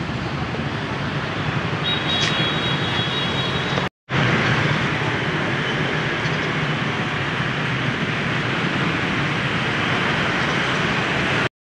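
Steady road traffic noise, cut off abruptly by edits about four seconds in and again at the end, with a thin high tone for about two seconds before the first cut.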